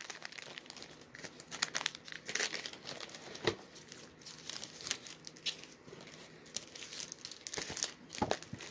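Paper and a clear plastic sleeve crinkling and rustling as sheets of paperwork are handled, in scattered short crackles.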